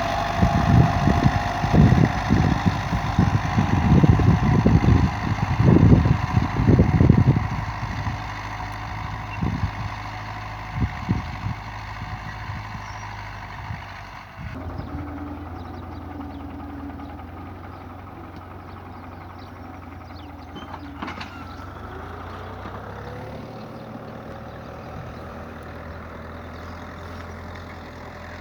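Tractor engine running steadily while ploughing, with wind buffeting the microphone in the first several seconds. About halfway through the sound changes abruptly and continues as a quieter, steady engine hum.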